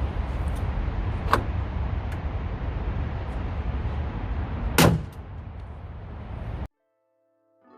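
Steady rumble of traffic from a nearby highway, with a light click about a second in and a sharp knock about five seconds in; then the sound cuts out.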